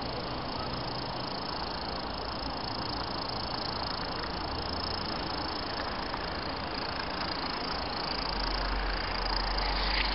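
Hornby OO gauge Class 50 model locomotive and coaches running along the track, with a low rumble that grows louder near the end as the train passes close, over a steady hiss.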